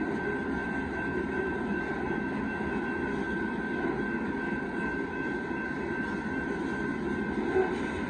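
Loaded rock cars of a Union Pacific freight train rolling past on the rails, a steady rumble of wheels and cars with a steady high tone above it.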